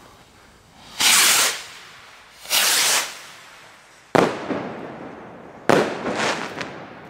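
A leftover firework going off. Two short hissing spurts come about a second and a half apart, then two sharp bangs with echoing tails, also about a second and a half apart.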